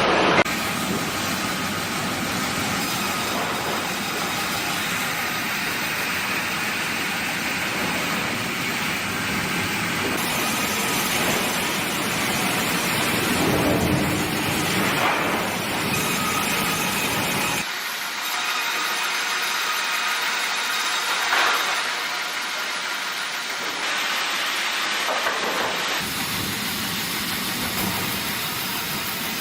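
Sawmill wood-cutting machinery running with a steady, noisy hiss and a faint whine. The sound changes abruptly a few times, as if separate clips were joined.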